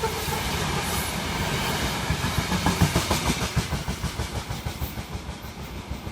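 Freight train wagons rolling past, their wheels clacking over the rails in a fast, steady rhythm. The sound fades over the last few seconds.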